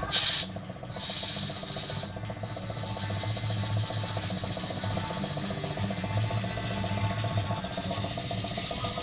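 Stuart 10V single-cylinder model steam engine running on compressed air. A sharp blast of air hiss at the start and another about a second in, then a steady exhaust hiss with a fast, even beat as the engine runs.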